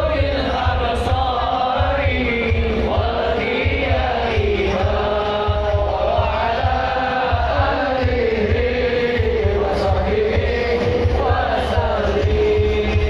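Islamic sholawat devotional song chanted by a chorus of voices over a steady drum beat.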